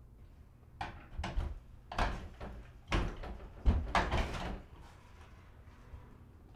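An old glass-paned wooden door being worked open: a run of rattles and clunks from the handle and latch over about four seconds, the loudest about two-thirds of the way through.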